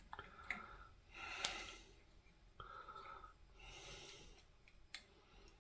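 Faint breathing with a few small sharp clicks of needle-nose pliers handling lamp wires.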